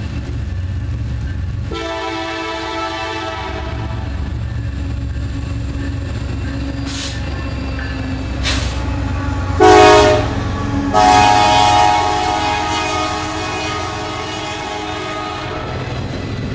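Norfolk Southern SD70M diesel locomotive's air horn sounding a series of blasts as the train approaches and passes: two long blasts at the start, two short toots, the loudest blast about ten seconds in, then a long one that ends about fifteen seconds in. Underneath is the steady low rumble of the passing locomotives and then the container cars rolling by.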